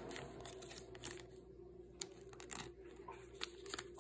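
Faint crinkling and light clicks of a thin plastic penny sleeve handled while sleeving a trading card, with a few sharper clicks in the second half over a faint steady hum.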